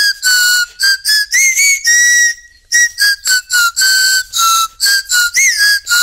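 Small pink plastic toy whistle blown in a string of short, shrill notes, a tune played note by note. The pitch wavers and some notes bend upward at their start, with one longer held note about two seconds in.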